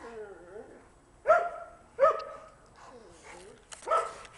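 A dog barking three sharp times, with quieter whining sounds between the barks.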